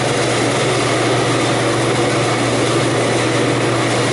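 Walk-in cooler evaporator fan running steadily: a constant rush of air with an even motor hum underneath.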